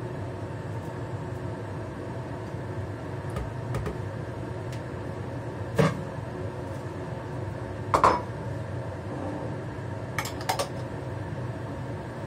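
Ceramic dishes clinking as they are handled and set down, a few separate knocks, the loudest about eight seconds in, with a quick pair a couple of seconds later, over a steady background hum.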